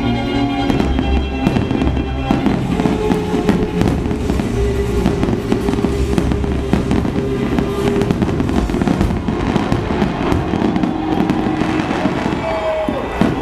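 Fireworks display: a dense, continuous run of bangs and crackling bursts from aerial shells, with music playing under it.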